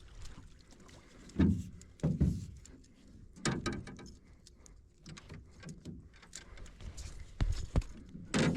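Several dull thumps and knocks against a boat hull, with handling noise between them. The loudest come about a second and a half in, at two seconds and near the end.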